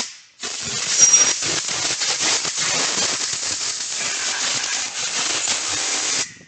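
Compressed-air blow gun hissing steadily for about six seconds, blowing concrete dust out of a drilled lag-bolt hole, then cutting off sharply.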